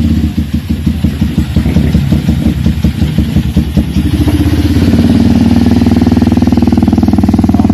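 Motorstar Xplorer Z200 single-cylinder engine running just after an overhaul. It idles with uneven pulses at first, then settles into a steadier, faster run about five seconds in. It is free of the ticking and knocking it had before the rebuild.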